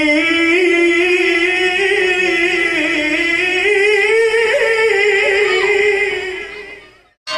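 Male qari reciting the Qur'an in melodic qiroah style into a handheld microphone. He holds one long unbroken phrase with wavering ornaments, climbing in pitch past the middle, then fades out near the end.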